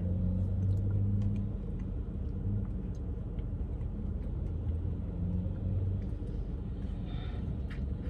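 Steady low rumble of a car's idling engine heard inside the cabin, with a few faint clicks.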